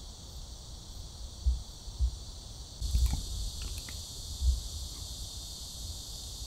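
A steady, high-pitched chirring of insects, growing louder about three seconds in, with a few dull low thumps.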